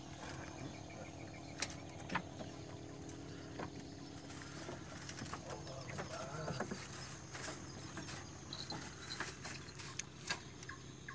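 Quiet ambience aboard a moored boat: scattered light clicks and knocks, over a faint steady low hum, with faint distant calls about halfway through.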